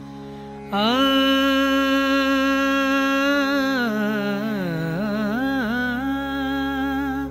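Male Hindustani classical voice singing a devotional bhajan in Raag Bhairavi over a steady drone. The voice enters about a second in with an upward slide, holds one long note, and dips and wavers through ornamental pitch bends in the middle before settling back onto the held note.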